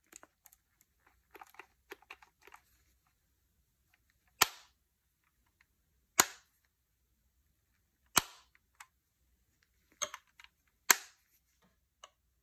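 Bug-A-Salt salt gun's plastic mechanism clicking under handling, then snapping sharply five times, roughly every one to two seconds.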